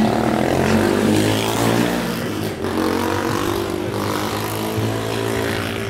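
Music played loud through a sound system's speaker stacks, with a heavy bass line and several pitched parts that shift from note to note.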